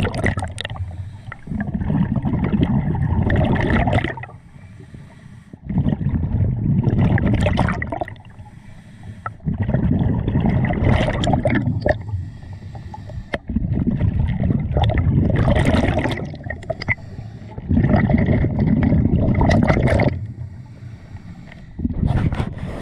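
A scuba diver breathing through a regulator underwater: a loud rush of exhaled bubbles about every four seconds, six times, each lasting about two seconds, with quieter inhalations between.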